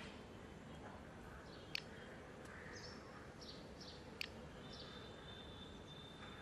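Faint outdoor birdsong: short chirps and a thin held whistle over low background hiss, with two sharp clicks about two and a half seconds apart standing out as the loudest sounds.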